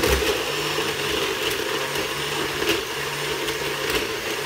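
NutriBullet personal blender running, its cup held pressed down onto the motor base, blending a smoothie. The motor starts abruptly and then runs steadily.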